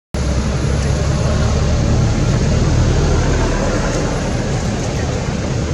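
Steady low rumbling background noise that cuts in just after the start, with no distinct animal calls.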